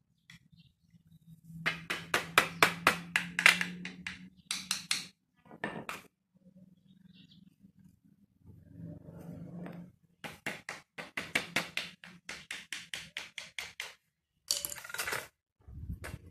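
Claw hammer tapping rapidly on the end of an old screwdriver, metal on metal, driving its tip under a nail head in a wooden broom head to start the nail out. Two runs of quick taps, about five a second, begin about two seconds in and about ten seconds in, with a short burst near the end.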